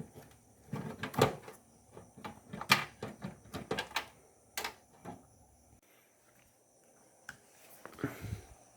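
Irregular knocks and clatter of computer parts being handled while a desktop system unit is taken apart to get at its hard disk. The knocks come thick for the first few seconds, stop for about two seconds, then come again briefly near the end.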